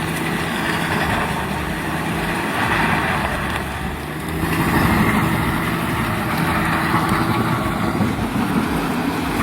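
RT400 land-clearing machine grinding through a stump: the engine runs steadily under load beneath a dense grinding noise from its cutter teeth on wood and roots, swelling a little about halfway through.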